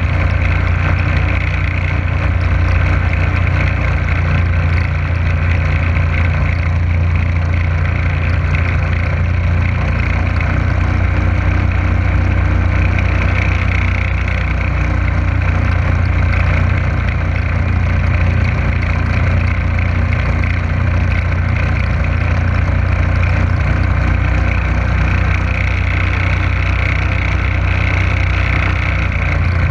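Motorboat engine running steadily under way, a loud, even low drone, with the rush of water from the wake.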